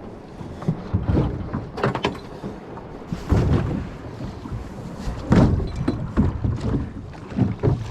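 Wind buffeting the microphone in uneven gusts, with knocks and splashing from a small boat riding choppy water.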